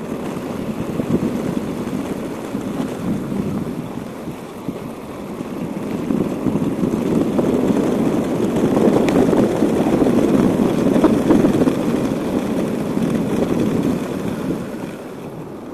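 Bicycle tyres rumbling and rattling over a cobblestone road while riding, growing louder for a while in the middle and easing off near the end.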